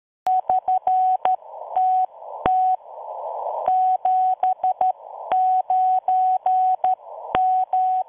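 Morse code: a single steady beep tone keyed in a run of short and long beeps, like a radio sidetone. Between the beeps a static hiss swells up and is cut off each time the tone comes back.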